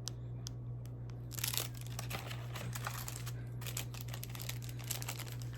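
Plastic packaging on packs of press-on nails crinkling as they are handled, in irregular crackling bursts that get busier about a second and a half in.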